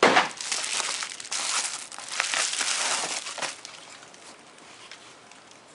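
Bubble wrap and a soft wrapping sheet crinkling and rustling as they are handled and pulled off a camera body, loud for the first three seconds or so, then dying away.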